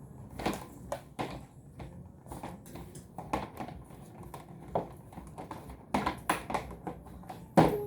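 Irregular clicks and knocks of plastic rack parts being handled and fitted together, sparse at first and coming faster and louder near the end.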